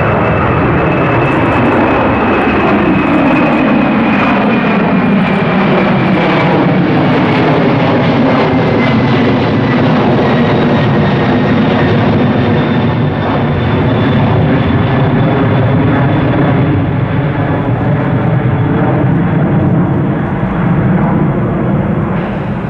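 Jet airliner's engines passing close by, a loud steady roar with a high whine that slowly falls in pitch as the aircraft goes past.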